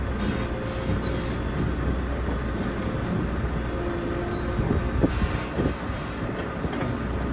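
Komatsu PC210 hydraulic excavator's diesel engine running steadily as the machine crawls forward on its steel tracks during loading onto a lowboy trailer. A few sharp knocks come about five seconds in.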